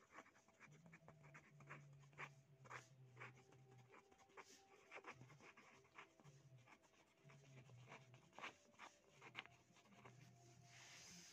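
Pen writing on paper: faint, irregular scratches and light taps as letters and symbols are written out, with a few sharper ticks now and then.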